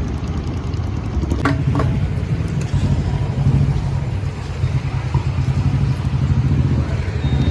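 Vehicle engine running with a steady low drone, amid road and traffic noise.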